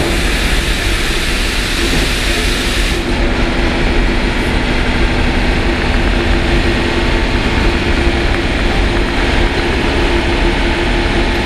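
2ES4K DC electric locomotive standing with its auxiliary machinery running: a steady loud whir with a low hum in it. A high hiss on top drops away sharply about three seconds in.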